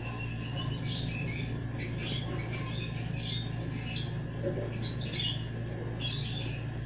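Baby lovebird begging with a run of short, high-pitched calls while it is hand-fed soft food from a spoon, over a steady low hum.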